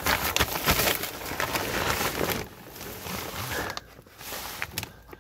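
Rustling and scraping of a person crawling across a crawlspace floor, loudest over the first two and a half seconds, then softer scuffs.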